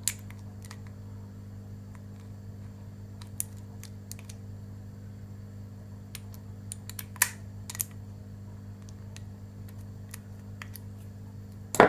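A few sparse, light metallic clicks and taps from a 7-pin tubular lock pick being handled and fitted to a disc lock, over a steady low hum.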